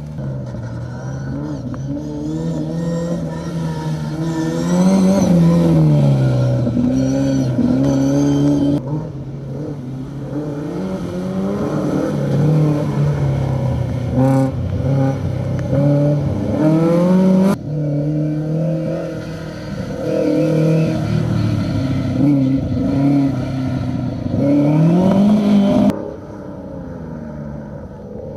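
Classic rally car engines revving hard and accelerating, their pitch climbing and dropping back again and again. The sound changes abruptly about every nine seconds, as one car gives way to another.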